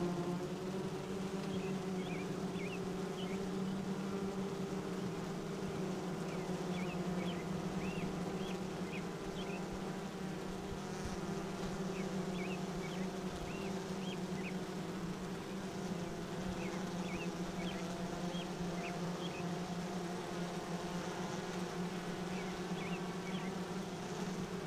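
Honey bees of a colony that has been queenless for two days buzzing in a steady hum as they crowd around a newly introduced queen in her cage, fanning their wings. Short runs of faint high chirps come through every few seconds.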